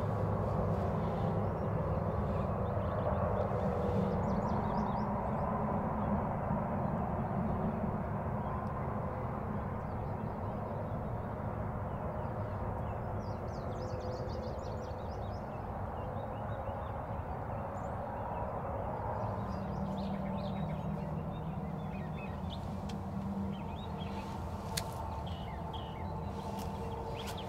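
Steady low outdoor rumble with faint steady hums, and faint high bird chirps now and then.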